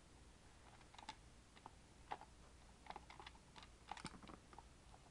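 Light clicks and taps of a View-Master Model D viewer's plastic case being handled while the battery compartment in its base is worked open. About a dozen irregular clicks, the sharpest about two seconds in and a quick cluster around three to four seconds.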